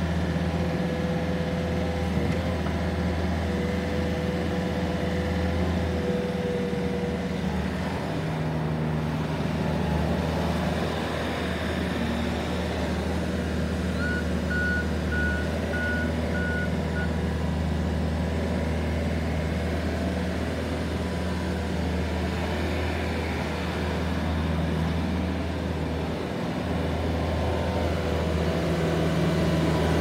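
Bobcat S650 skid-steer loader's diesel engine running steadily as the machine drives about, its revs shifting slightly now and then. A backup alarm beeps for about three seconds around the middle.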